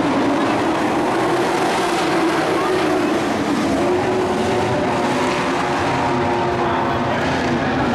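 A field of dirt-track racing trucks at racing speed, many engines running together steadily with several pitches overlapping.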